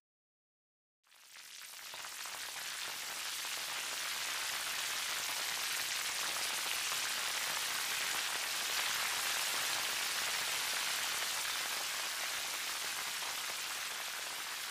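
Corned beef and scrambled egg sizzling in a frying pan: a steady hiss that fades in after about a second of silence.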